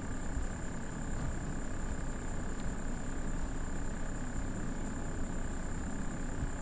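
Steady background noise of the recording setup: a low rumble and hiss with a constant thin high-pitched whine.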